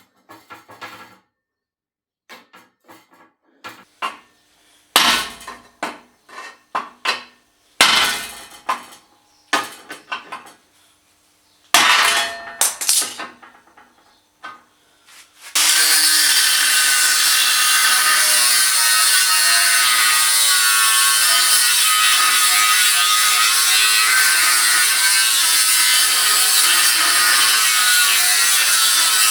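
Scattered knocks and clanks of steel and tools being handled during setup. About halfway through, a power cutting tool starts and runs steadily and loudly on the steel chassis rail.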